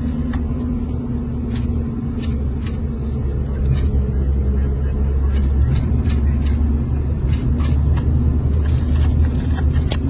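Deep, steady rumble heard from inside a car driving through a burning wildfire, with scattered sharp crackles and pops; it grows louder about four seconds in as the car enters the flames.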